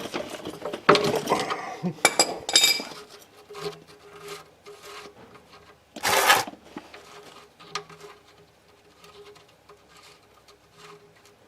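Metal clinks and scraping of a wrench working the drain plug on a car's oil pan, the sound of the plug being loosened to drain the oil. There is a short loud rush about six seconds in, then faint light ticking.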